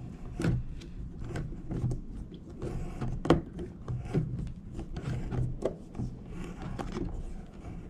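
Rethreader die of an all-in-one skate tool being turned by hand on a skateboard truck's threaded axle, chasing threads that had made the nut hard to fit: a run of irregular metal clicks and scrapes, a little over one a second, the strongest about three seconds in.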